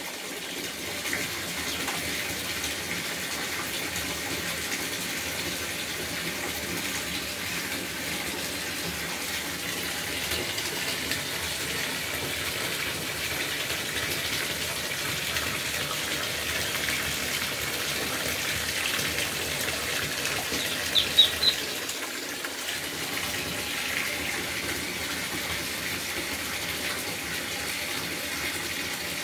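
Steady rush of water running from a tap into a tub. A quick run of four high peeps from Muscovy ducklings cuts through about two-thirds of the way in.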